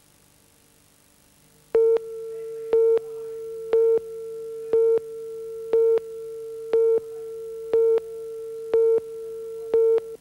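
Near silence with a faint hum, then about two seconds in an electronic line-up tone starts: a steady mid-pitched tone with a louder beep once a second, nine beeps in all. It cuts off suddenly at the end.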